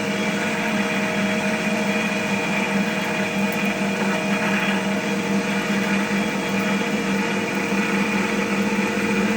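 Cast cotton candy machine running with a steady motor hum. The heat has just been turned up at its gas regulator because the sugar floss is not yet coming out.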